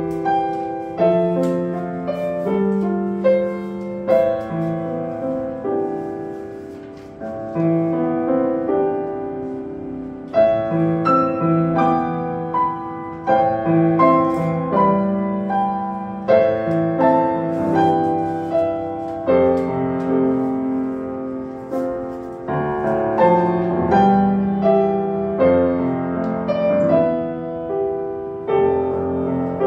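Grand piano played live: a flowing melodic piece of ringing notes and chords, with a softer passage that swells back up on a strong chord about ten seconds in.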